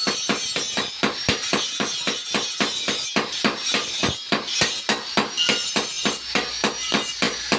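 Rapid, regular hammer blows on steel at a blacksmith's anvil, about five a second, with high metallic ringing between strikes. This is the kind of hammering done when forging a hoe blade back into shape.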